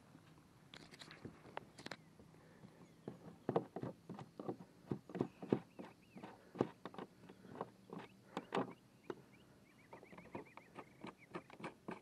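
Hands working the hard plastic fittings around a pedal kayak's drive well: irregular clicks and knocks, several a second, starting about three seconds in.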